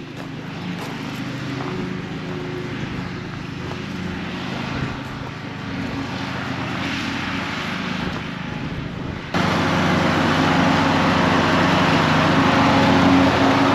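An engine running steadily. About nine seconds in, a sudden cut to a louder, rougher engine sound that holds steady.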